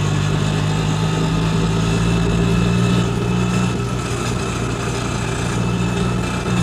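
Engine sound effect dubbed onto a string-pulled toy auto rickshaw: an engine idling steadily at a low, even pitch.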